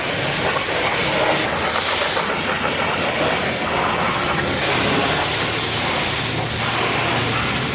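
Pressure washer jet spraying water, a loud steady hiss over a low hum.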